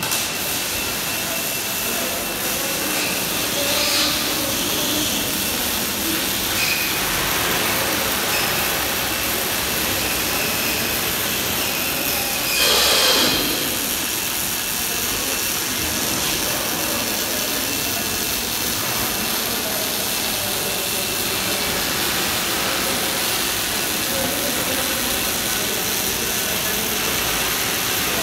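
MIG welding arc crackling and hissing steadily as a wire-fed torch lays a weld on a steel beam, with a brief louder surge about halfway through.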